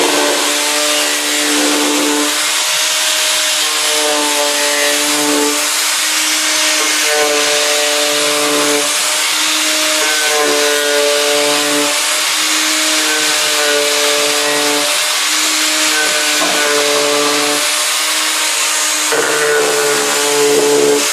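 Corded angle grinder running steadily while it shaves the weathered surface off an old wooden board. The motor's pitch steps up and down as the tool is worked along the wood.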